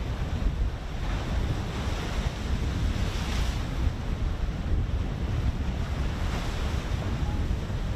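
Wind buffeting the microphone over the wash of open sea waves, a steady rumbling hiss that swells briefly about three seconds in and again just after six.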